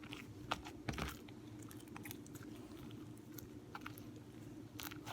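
Homemade glue slime, still a little sticky, being kneaded by hand: faint, irregular sticky clicks and small pops.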